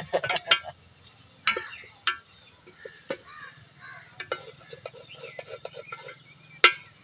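A long metal spoon stirring chicken karahi in a round metal pot over a wood fire, striking the pot with about five sharp clinks. The loudest clink comes near the end.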